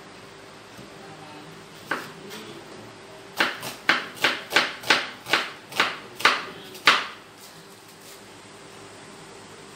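Kitchen knife chopping through a vegetable onto a cutting board: one knock about two seconds in, then a run of about ten chops, roughly three a second, stopping about seven seconds in.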